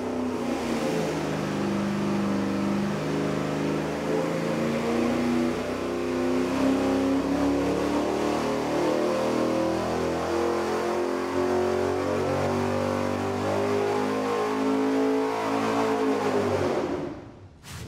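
Carbureted V8 on an engine dyno making a wide-open-throttle pull through a four-barrel street double-pumper carburetor with no air filter, revving up from about 3,000 to 6,500 rpm. Near the end the throttle closes and the engine note drops away.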